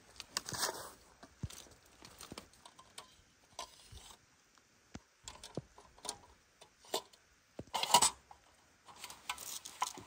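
Irregular rustling, crunching and clicking of someone moving about and handling things, with louder rustling bursts about half a second in and about eight seconds in.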